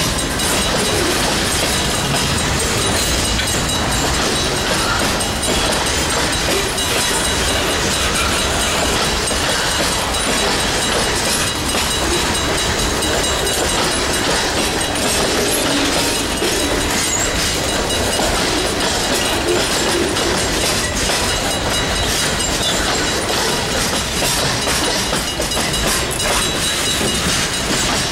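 Freight train's boxcars rolling steadily past at close range, steel wheels clattering on the rails. A grade-crossing bell rings continuously above the train noise.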